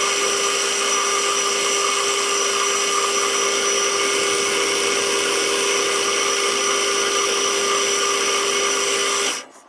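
A power tool running steadily at constant speed with a fixed hum and a whine, switched off and cutting out shortly before the end.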